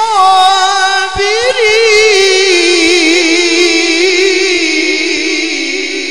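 A man's voice reciting the Quran in a long, drawn-out melodic line (tajweed-style melisma) into a microphone, the pitch wavering in ornaments and slowly sinking. There is a brief break and a fresh rising phrase about a second in, and the voice fades toward the end.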